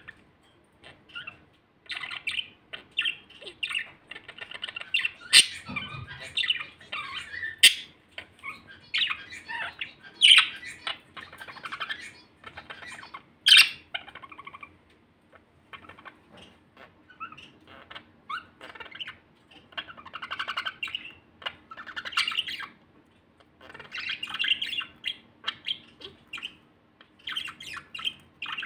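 Male budgerigars warbling: a long run of chattering song in short phrases with brief pauses, cut by a few sharp, loud chirps.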